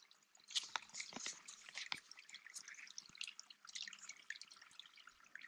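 Filtered creek water dripping from a gravity water filter hung under a water bag: an irregular patter of small drips. A few soft knocks come in the first two seconds or so.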